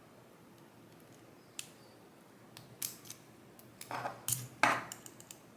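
Small metallic clicks and scrapes of a tool working a circlip off a lock cylinder, sparse at first, with a burst of louder clinks about four seconds in.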